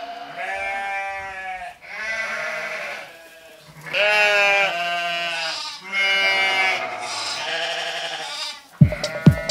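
Sheep bleating: several long bleats one after another. Electronic music with a steady thumping beat starts near the end.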